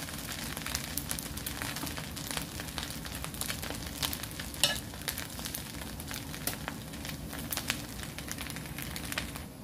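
Garlic fried rice (sinangag) sizzling steadily in a frying pan. A wooden spatula stirs and tosses the rice, with many small clicks and taps against the pan.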